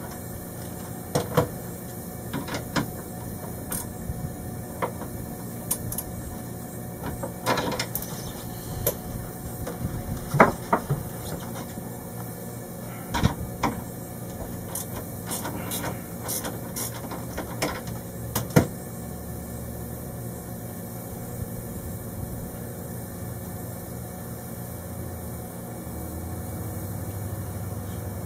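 Scattered clicks, taps and rustles of hands handling a wiring harness and its fittings at a boat's ground bus. They are busy for the first two-thirds and stop after about 18 seconds, leaving a low steady hum.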